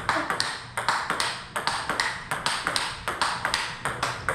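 Table tennis rally: a celluloid-style ping-pong ball cracking off rubber-faced rackets and bouncing on the table in a quick, even run of hits, about five a second. The rackets carry a new rubber under test, praised for its crisp, open sound.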